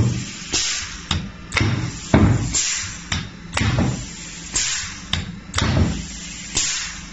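Pneumatic air hammer (an industrial knocker for hoppers and silos) driven through a timer-controlled solenoid valve, knocking about once a second: sharp clicks and low thuds, with a short hiss of exhausting air about every two seconds.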